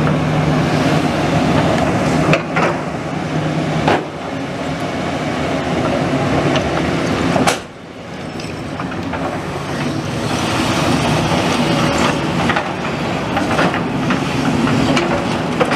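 Diesel demolition machinery running at a site clearing rubble, with a steady engine hum and continuous clattering and rattling of stones. Sharp knocks come about two and a half, four and seven and a half seconds in.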